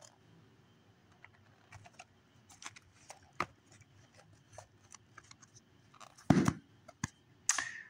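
Handling noise from a hardcover book on a foam mat: scattered light clicks and taps, with two louder brushing sounds near the end.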